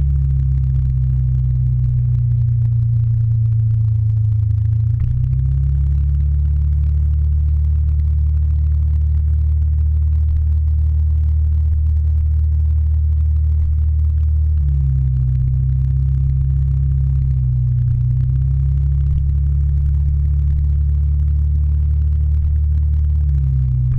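Motor scooter engine running while riding, a low muffled drone. Its pitch dips as the throttle eases and then climbs again, about four seconds in, between about fifteen and eighteen seconds in, and near the end.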